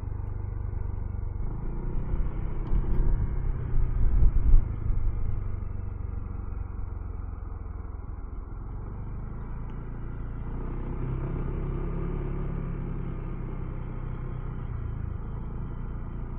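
Honda ADV160 scooter's 160cc single-cylinder engine running at low speed as the scooter slows and rolls along. There is gusty wind rumble on the microphone about two to five seconds in, and the engine picks up slightly about eleven seconds in.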